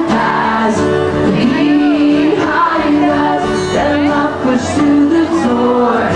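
Live pop-rock band playing, with a male lead singer singing over guitar and the full band.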